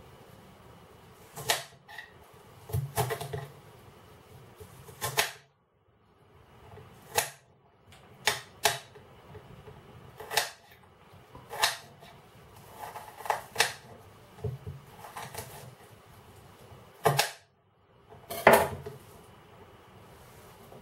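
Kitchen knife dicing an onion and knocking down onto a hard chopping board. The knocks are sharp and uneven, coming about once a second and some in quick pairs.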